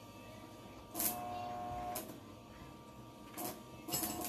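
A handheld power tool running in short bursts against the metal gate and its concrete post. It runs for about a second, stops, gives a short burst, then starts again near the end.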